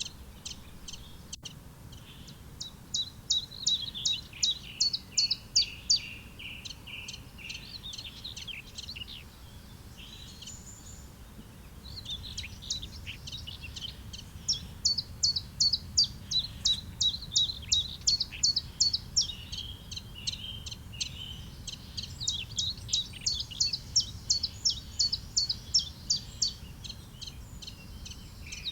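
Songbirds singing: long, fast runs of sharp, evenly repeated high notes lasting a few seconds each, broken by lower warbling phrases.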